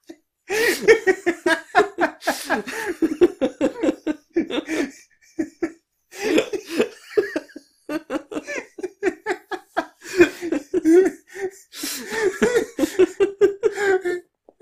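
Men laughing at length in long runs of quick bursts, broken by short pauses.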